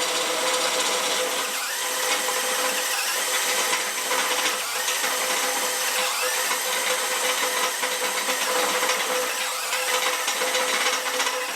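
DeWalt DCD996 brushless hammer drill running steadily, with a constant motor whine under the cutting noise.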